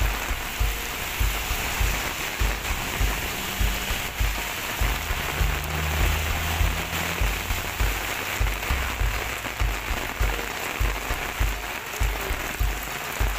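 Heavy rain and floodwater rushing across a road make a steady dense hiss. Under it runs background music with a steady low beat, about two thuds a second.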